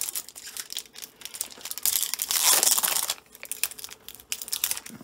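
Baseball card pack wrapper being torn open and crinkled, with a louder, longer tear about two seconds in that lasts about a second.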